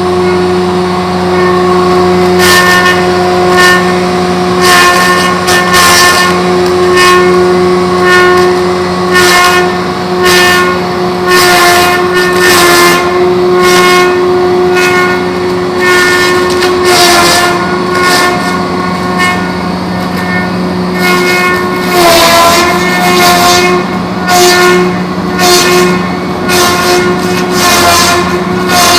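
Homemade log-rounding machine running: a steady motor whine with frequent, irregular rasping bursts as the cutter works the log. Twice the pitch sags briefly, as if under load.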